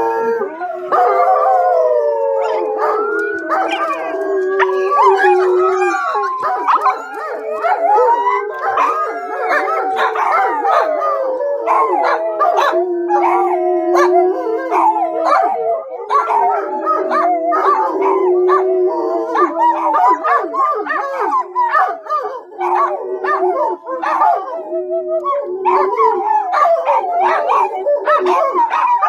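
A pack of dogs howling together, many overlapping howls rising and falling in pitch, with short barks and yips breaking in more and more often in the second half.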